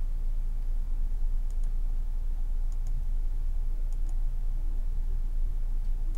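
Computer mouse button clicking: about three quick double ticks, spread a second or so apart, as the map is zoomed in, over a steady low electrical hum.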